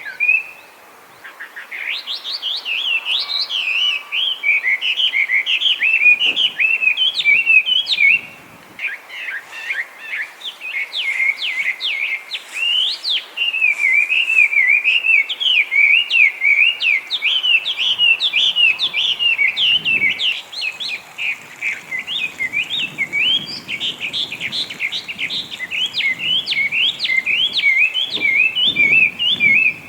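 Hwamei (Chinese hwamei) singing: a loud, unbroken run of rapid, varied whistled phrases, pausing briefly about a second in and again about eight seconds in.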